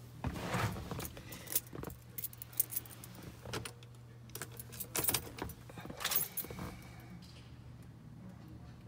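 A bunch of keys jangling and clicking at the truck's ignition, with scattered light knocks and rattles over a faint steady low hum.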